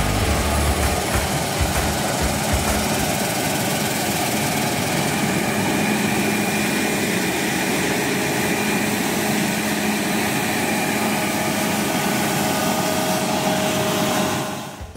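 Claas Lexion combine harvester running steadily, a dense even machine noise with a low hum, dropping away near the end.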